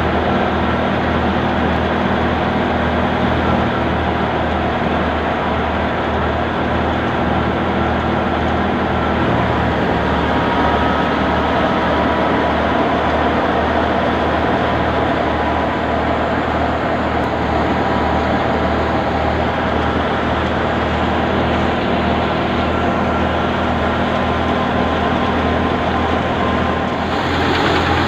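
Mustard threshing machine running steadily, a continuous loud mechanical din with a low hum underneath as it threshes mustard stalks.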